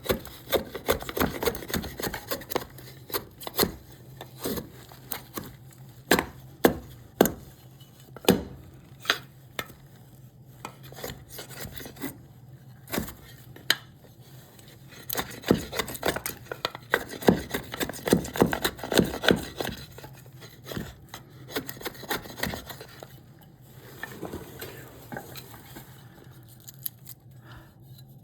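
Hand chisel work on a block of cherry wood: irregular sharp knocks and scraping strokes, coming in clusters and thinning out near the end, over a steady low hum.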